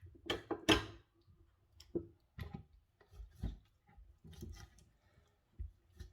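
Irregular light clicks and knocks of kitchen items being handled, about seven in all, with the two loudest close together near the start.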